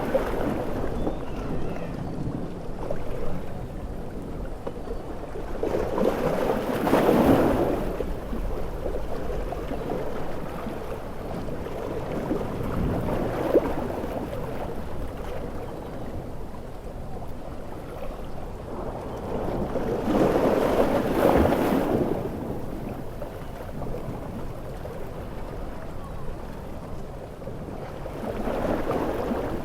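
Stormy sea surf: a steady low wash of water and wind with big waves surging up and breaking about 7 seconds in and again about 21 seconds in, another building near the end. A single short sharp crack about 13 seconds in.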